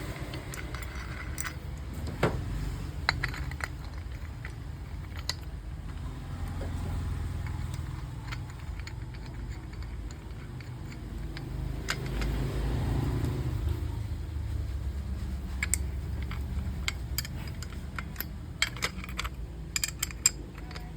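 Scattered light clicks and metallic clinks over a steady low background rumble, with the clicks coming more often near the end; the grinder motor is not running.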